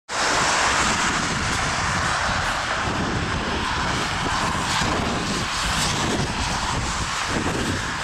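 Steady, loud rushing noise with a low rumble underneath, holding evenly throughout.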